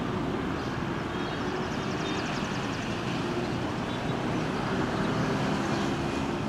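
Steady jet-engine noise from an Airbus A321 on the runway just after landing, an even rumble with a faint low hum that holds level throughout.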